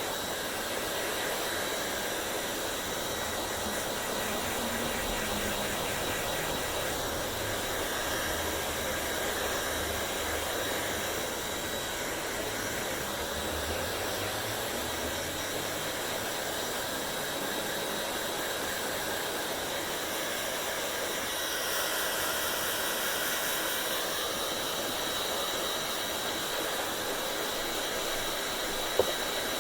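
Hair dryer blowing steadily: a continuous rushing hiss with a faint high steady whine, the tone shifting slightly for a couple of seconds past the middle. A single sharp click near the end.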